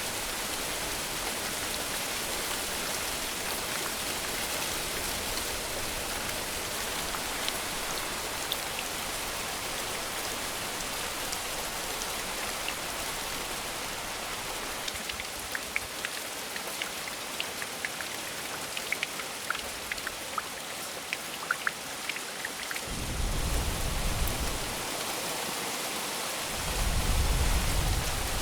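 Steady heavy rain, with individual drops pattering distinctly from about halfway through. Two low rumbles of thunder come near the end, the second one louder.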